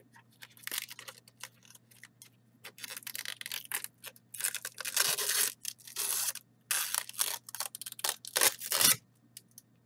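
Thin protective plastic film being peeled off a graphics card, crinkling and crackling in irregular bursts that grow busier and louder from about three seconds in.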